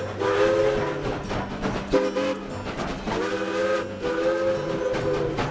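Steam locomotive chime whistle blowing four blasts, each a chord of several steady notes, over the noise of a train running.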